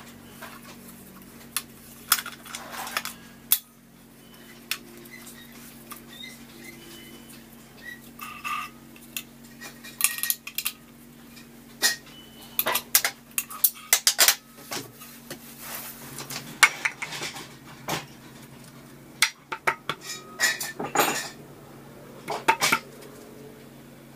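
Metal stunt-scooter parts and hand tools clinking and clicking irregularly as the scooter is assembled, with clusters of sharp knocks and a steady low hum underneath.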